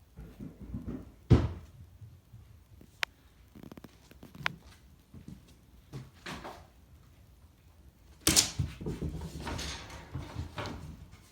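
Knocks and thumps in a small room: a heavy thump about a second in, two sharp clicks a little later, and a longer stretch of scuffling and bumping near the end.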